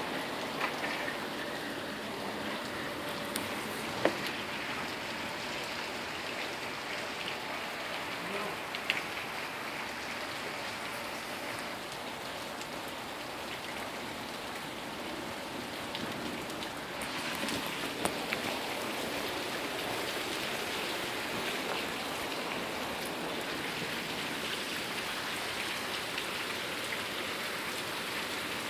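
Steady rain falling and hissing on surfaces, with a few sharp taps of drops. It grows a little louder about two-thirds of the way through.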